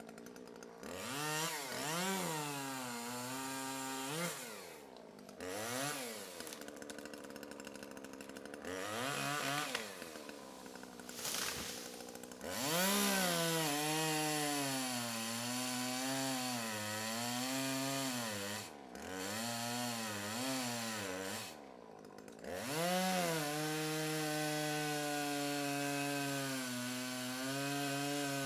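Chainsaw engine revved in repeated bursts, dropping back between revs. Later it is held at high speed for several seconds at a time, its pitch sagging and recovering.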